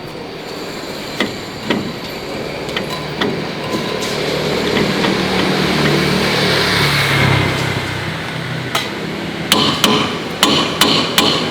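An engine running steadily, its pitch rising and easing back off around the middle, with occasional sharp metallic knocks. About two-thirds of the way through, a quick series of hammer-like metal strikes begins.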